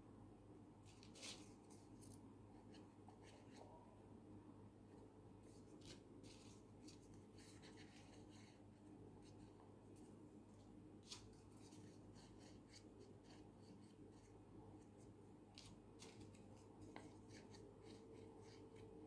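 Near silence with faint, scattered rustles and light ticks of paper circles being picked up, handled and glued, over a faint steady low hum.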